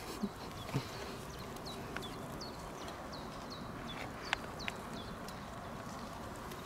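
Faint outdoor background in which a bird chirps repeatedly in short, high, falling notes, with a few light clicks.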